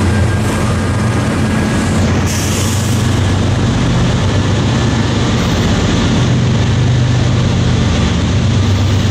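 Diesel locomotive engine running loud and steady as a train goes by close at hand, a low hum throughout. A short hiss comes about two seconds in.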